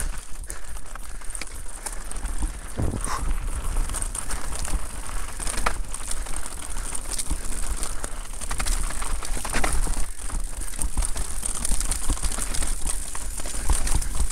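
Electric mountain bike ridden down a rough trail: tyres running over dirt and stones, with frequent knocks and rattles from the bike over a constant low rumble.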